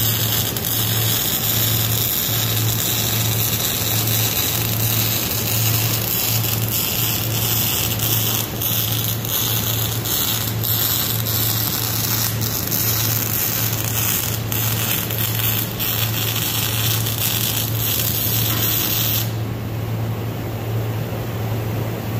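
MIG welding arc crackling and hissing steadily through a long continuous bead, with scattered pops of spatter, cutting off about three seconds before the end. A steady low hum runs underneath throughout.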